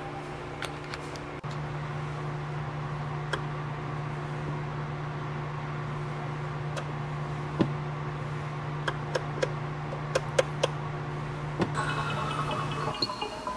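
Steady low mechanical hum with scattered sharp clicks and ticks. Near the end the hum stops and soft music with chime-like notes comes in.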